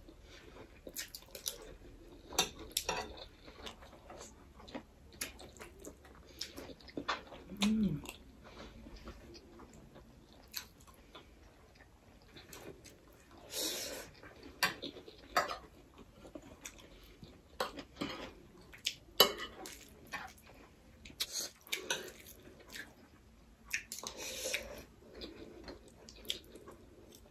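Metal spoons clinking and scraping on ceramic plates, with chewing, in quiet, irregular scattered clicks. A short low hum comes about eight seconds in.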